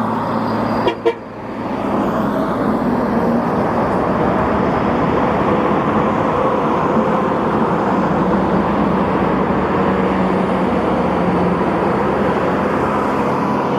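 Steady road traffic noise with vehicle engines running, and two short clicks about a second in.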